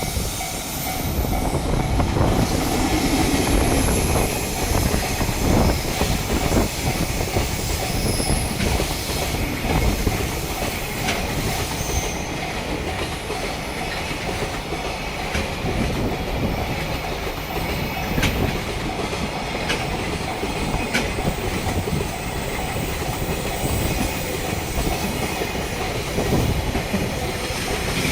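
Freight train of Koki container flat wagons hauled by an EF65 electric locomotive running past. Its wheels clatter heavily and continuously over the rail joints.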